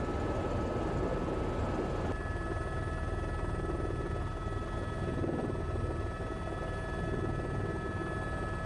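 A steady low rumble with faint high steady whines over it, changing abruptly about two seconds in.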